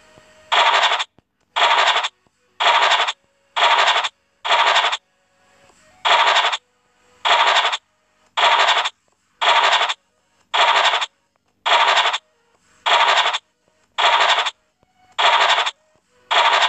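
Online scratch-card game's scratching sound effect, a rough scraping noise about half a second long that repeats about once a second, one for each hidden number uncovered.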